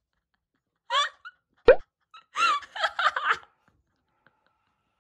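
Short wordless vocal sounds in a few brief bursts, with one sharp knock a little under two seconds in.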